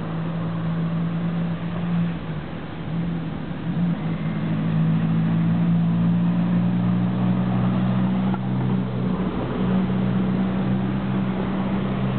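Tram standing at a stop with its onboard equipment running: a steady low hum of a few held tones that steps up and gets louder a few seconds in, over street noise.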